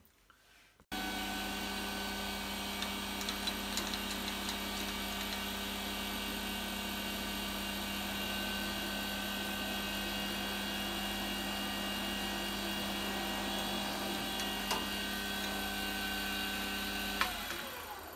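Metal lathe running steadily with a steady multi-tone whine from its motor and gears, its chuck spinning a threaded rod as the rod's end is machined to take a motor shaft, with a few faint clicks. The sound cuts in about a second in, and near the end the lathe is switched off and its pitch falls as it winds down.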